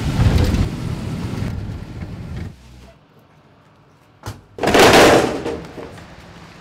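Pulque gushing and splashing onto the ground, fading out over about two and a half seconds. After a short lull and a click, a second loud rush of noise comes about five seconds in and fades.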